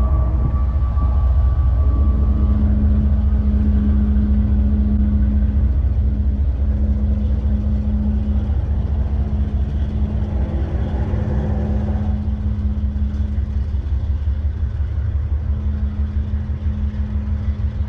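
Freight-train diesel locomotive engine running steadily at close range, with a deep pulsing rumble and a steady hum.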